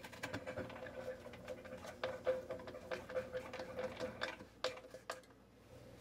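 Torx screwdriver turning a screw down into the plastic sump cover of a dishwasher: a quick run of clicks and small squeaks that stops about five seconds in, with two sharper clicks near the end.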